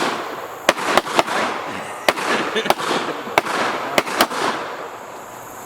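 Gunshots at a shooting range: about seven sharp reports at irregular spacing, some close together, each trailing off in a short echo. The last comes a little past the middle, and it then stays quiet apart from the fading echo.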